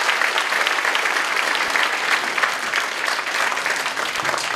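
A crowd applauding, a dense patter of many hands clapping that eases off a little near the end.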